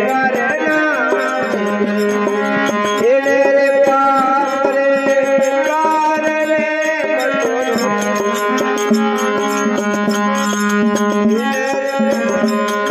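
Instrumental interlude of a Hindi devotional bhajan: a melody line glides over a steady drone, with hand-drum percussion keeping the rhythm throughout.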